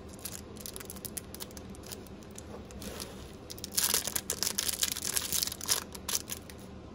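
Small clear plastic bag crinkling and rustling as it is unwrapped from a tumbled stone, with a louder run of crackles from about four to six seconds in.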